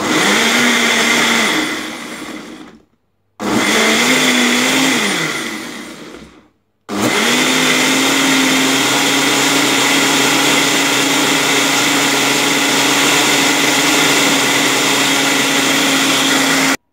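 Personal bullet-style blender motor blending chunks of fruit and a little water into juice. It runs in two short pulses, its whine rising and then winding down after each, then runs steadily for about ten seconds and stops abruptly near the end.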